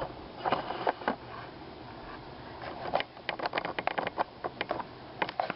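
Light clicks and knocks of plastic toy playset pieces being handled, a few at first and then a quick run of them in the second half.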